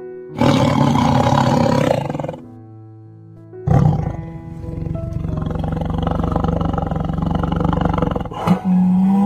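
A large animal roaring twice over background music: a rough call of about two seconds, then a longer one of about four and a half seconds.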